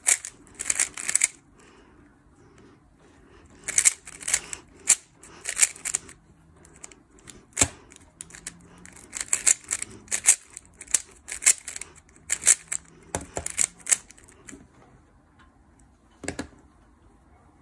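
Yulong V2 Magnetic stickerless 3x3 speed cube having its layers turned by hand, giving quick bursts of plastic clicking with short pauses between.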